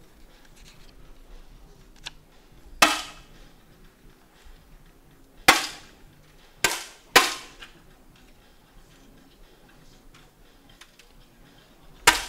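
Five sharp pops from 10m competition air rifles firing in turn, each with a short echoing tail. The first comes about three seconds in, the next at five and a half seconds, two close together around seven seconds, and the last right at the end.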